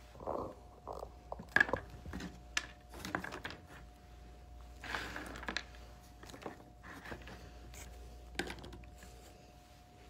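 Handfuls of granola, nuts and dried fruit being scraped up off a tabletop and pressed into a popsicle-stick bird feeder: scattered light clicks and rustles, the sharpest about one and a half seconds in.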